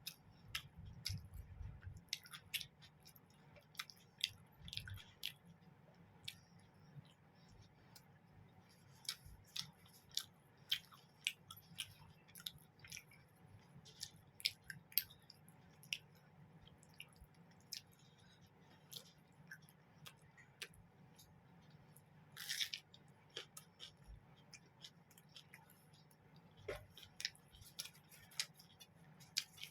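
Close-up eating sounds of a person chewing mutton kosha and roti: soft chewing with irregular wet mouth clicks and smacks, and a brief louder rustling burst about two-thirds of the way through.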